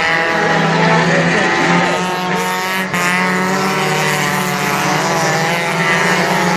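Several mini stock race cars' engines running at high revs as the pack passes, their pitches rising and falling as cars go by and the drivers work the throttle.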